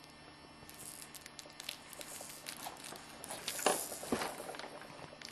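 Soft rustling and crinkling with scattered light taps of things being handled, the loudest tap about three and a half seconds in.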